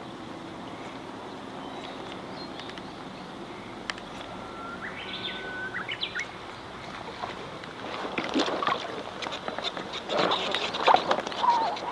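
Steady hiss of light rain falling on pond water, with a short whistled bird call about midway. From about eight seconds in, water splashes and sloshes loudly and irregularly against a small boat.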